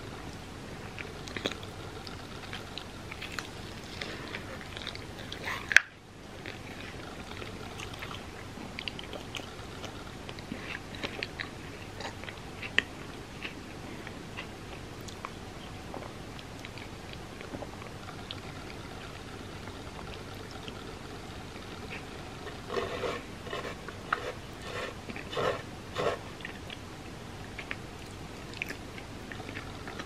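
Close-miked chewing and biting of a chocolate-dipped hotteok, a crisp-edged Korean sweet pancake: sticky, wet mouth sounds with scattered crisp clicks. A sharp loud click comes about six seconds in, and the mouth sounds grow denser for a few seconds about three-quarters of the way through.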